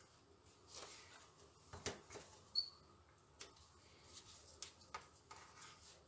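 Faint rustling and tapping of paper strips being handled by hand, with scattered light clicks and one brief sharp clink about two and a half seconds in as the scissors are picked up.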